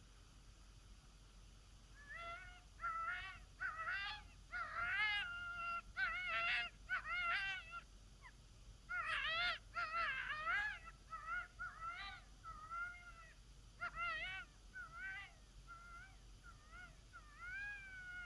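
Triple-reed diaphragm coyote howler blown in a quick run of yips, barks and short wavering howls imitating a coyote, starting about two seconds in, with a longer rising howl near the end.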